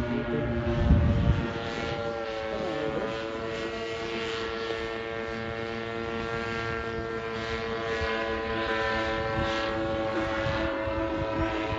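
Vittorazi Cosmos 300 two-stroke paramotor engine and propeller droning steadily overhead in flight. A brief low thump about a second in.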